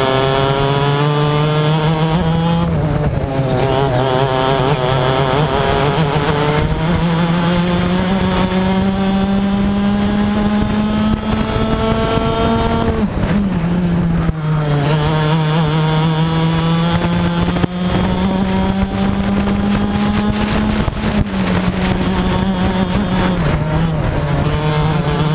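Onboard sound of a racing kart's two-stroke engine at full throttle, its pitch climbing slowly along the straights and dropping sharply several times as the driver lifts off for the corners.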